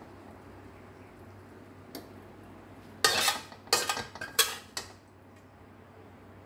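Metal utensil scraping and clinking against a metal pan as cooked food is scraped out onto a plate. There is a single tap about two seconds in, then a quick flurry of scrapes and clatters over about two seconds.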